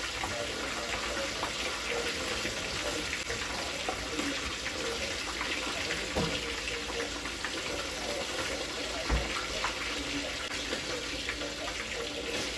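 Kitchen tap running steadily into the sink, with a few light knocks and clatters, the loudest a low thump about nine seconds in.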